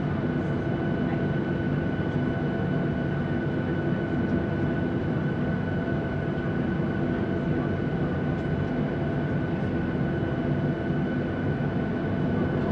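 Airliner's jet engines at low taxi power heard from inside the cabin: a steady low rumble with a high, even whine.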